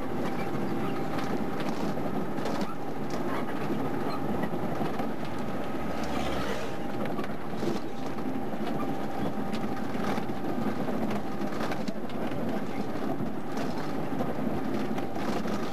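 Steady engine and road noise heard from inside a moving bus, with scattered rattles and a faint steady whine.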